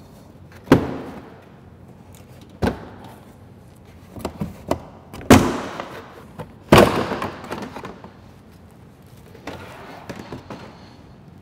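Plastic body panels of a Honda ATV being unclipped and lifted off: four sharp clacks and thuds, spaced a second or two apart, with plastic rattling and scraping between them, then softer handling noise.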